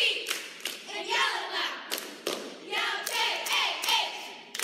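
A squad of cheerleaders shouting a cheer in unison, punctuated by sharp rhythmic claps, two or three a second.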